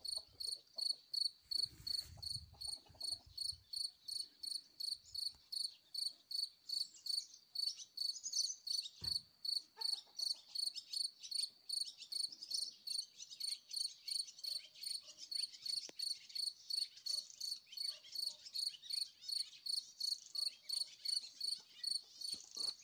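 Field cricket chirping in the grass: an even train of short, high chirps, about three a second.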